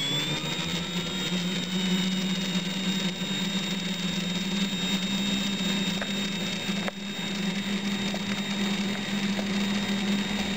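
Laser printer drum's brushless DC motor spinning, its high-pitched whine finishing a rise in pitch about half a second in and then holding steady, over a steady low hum.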